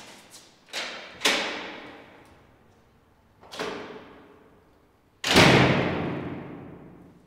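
Logo-reveal sound effects: a series of sudden cinematic hits, each ringing out and fading over a second or two. The loudest is a deep boom about five seconds in.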